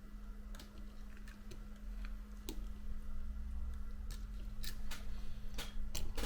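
Light, irregular clicks and taps of small repair tools against an opened iPhone 7's parts, about eight in all.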